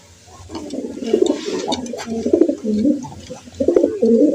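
Pigeons cooing: several low, warbling coos that overlap and follow one another, starting about half a second in, with a few faint clicks in the middle.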